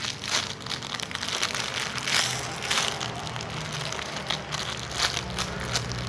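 Crinkling and crackling of a homemade squishy toy being squeezed and handled in the hands, close to the microphone, with irregular small crackles throughout. A low hum comes in near the end.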